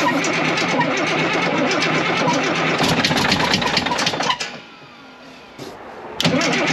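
The 10.5-litre Caterpillar diesel of a 977L track loader cranking over on its starter with ether sprayed into the intake. About four seconds in it cuts out and winds down with a falling whine, then cranks again near the end.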